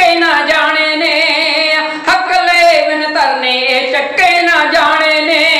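Male kavishari singers singing a Punjabi verse in high voices, with long held notes that waver in pitch.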